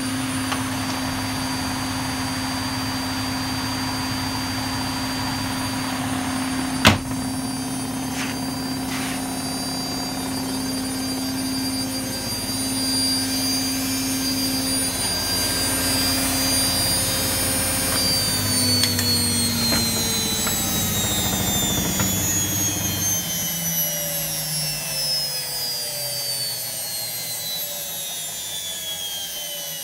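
Welling universal brushed washing machine motor, wired straight to the mains with no speed control, spinning the drum at full speed with a steady whine and hum, and one sharp knock about seven seconds in. About eighteen seconds in the pitch starts to fall steadily as the motor and drum spin down.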